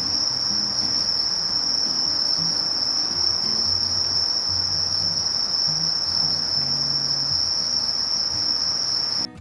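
Sasakiri katydid (Conocephalus melaenus) singing: a continuous, high-pitched, even buzz that stops abruptly near the end.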